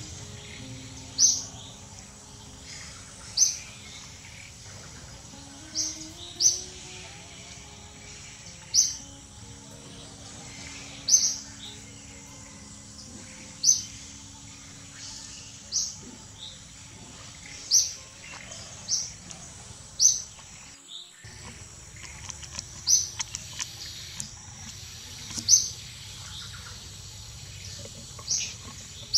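A bird repeating one short, sharp, high chirp about every two seconds, over a steady background hiss.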